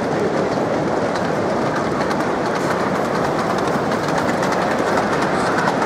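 Model train running on a layout: a model steam locomotive and its coaches rolling along the track, the wheels clicking rapidly and irregularly over the rail joints above a steady noise.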